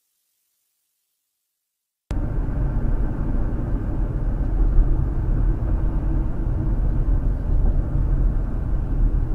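Silence for about two seconds, then a car's steady low driving rumble of road and engine noise, heard from inside the cabin through a dashcam.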